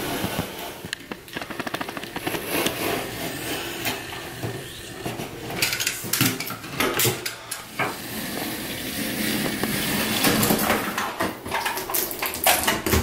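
Utility knife blade cutting and scraping along the caulk joint between a stone vanity backsplash and the wall: a run of quick scratches and clicks of metal on stone, with louder clusters of clicks about halfway through and near the end.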